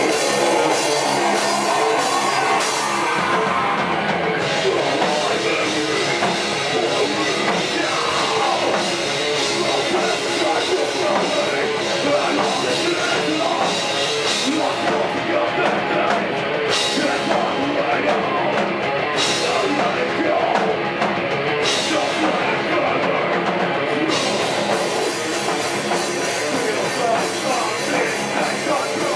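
Live heavy metal band playing loud, with distorted electric guitars, bass guitar and drum kit.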